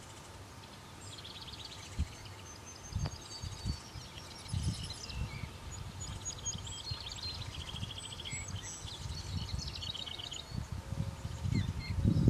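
Several birds calling and singing from the riverside trees, a mix of short trills, chirps and thin whistles. Under them, low gusts of wind on the microphone come and go, stronger near the end.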